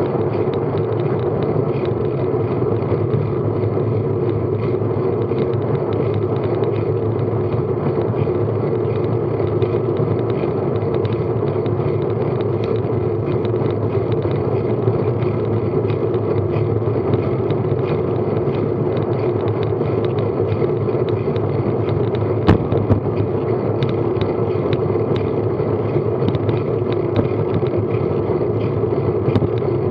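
Steady rush of wind and tyre noise on a bicycle-mounted action camera while riding on tarmac at about 15 mph. A couple of sharp clicks come past the middle.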